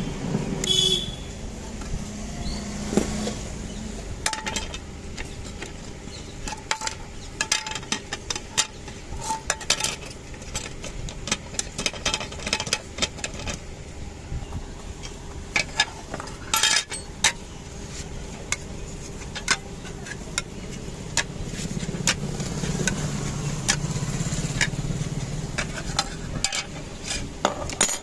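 Irregular small clicks and taps of repair tools against the hard parts of a Redmi 9C smartphone being opened up, over steady street traffic noise that swells for a few seconds near the end.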